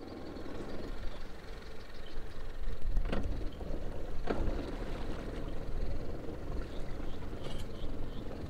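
Low, steady rumble of a vehicle running at a boat ramp, with two sharp knocks about three and four seconds in.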